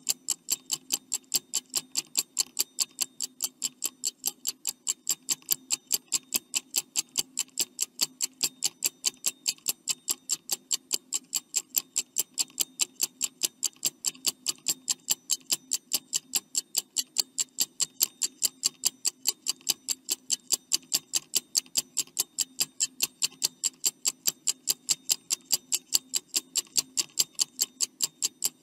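Stopwatch ticking sound effect counting down the time to answer a quiz question: fast, even ticks with no pause.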